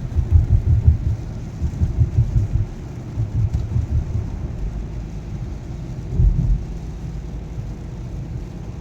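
Uneven low rumbling, heaviest in the first four seconds and again briefly about six seconds in, over a steady hiss of rain and road noise from a car driving in heavy rain.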